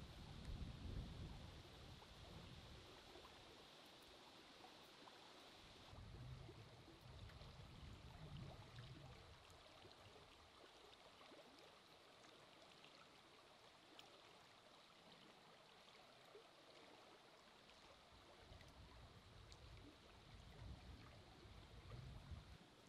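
Near silence: faint, even outdoor background hiss with a few soft low rumbles now and then.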